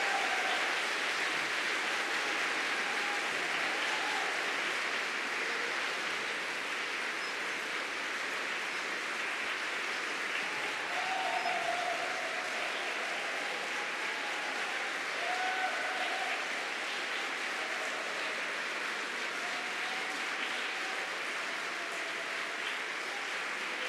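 Audience applauding steadily after a choral performance, with a few voices calling out faintly over the clapping.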